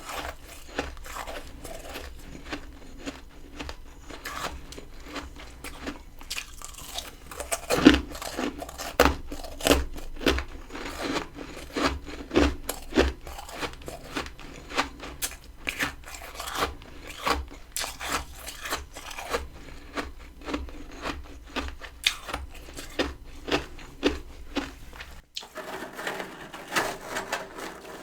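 Close-up crunching and chewing of freezer frost: fine crackles at first, a loud bite about eight seconds in, then crunches roughly once a second as the ice is chewed.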